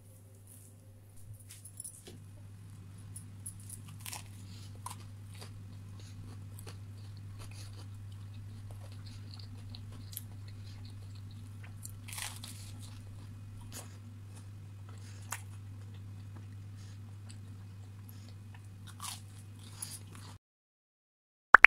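Crisp toasted sandwich bread crunching in scattered, irregular crunches over a steady low hum. The sound cuts off a little before the end, followed by one sharp click.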